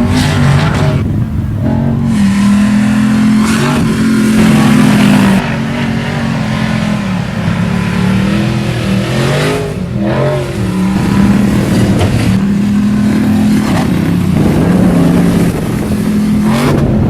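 Ford Raptor pickup's engine running hard off-road, its revs holding, stepping and swinging up and down with the throttle, with quick rev rises and drops about halfway through.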